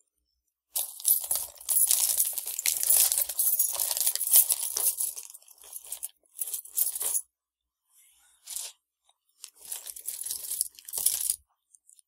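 Loud, scratchy rustling and scraping right at the microphone as a small combination luggage lock is handled and worked: one long stretch in the first half, then shorter bursts.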